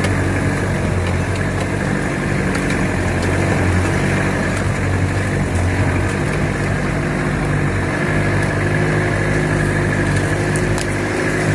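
Car engine running steadily at low speed on a rough dirt road, heard from inside the cab, with a few light clicks and knocks.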